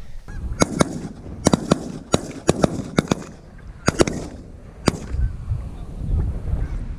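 A volley of about a dozen shotgun shots from several goose hunters firing at Canada geese over the decoys. The sharp reports come in quick succession, some in pairs, and end about five seconds in.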